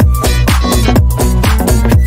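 Electronic dance background music with a steady beat.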